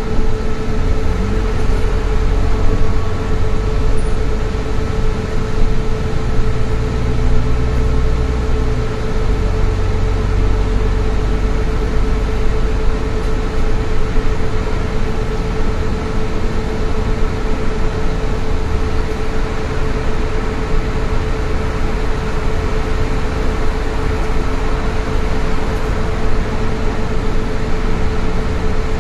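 Cabin noise inside a moving passenger vehicle: a steady low engine and road rumble with a constant hum over it.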